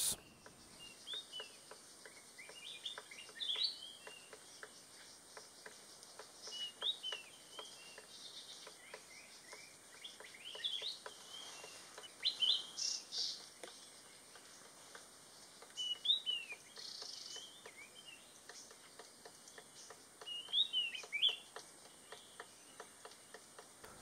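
White-browed piculet calling: short, high chirps in small clusters every few seconds, over faint, light tapping of a piculet pecking out its nest hole in a bamboo stem.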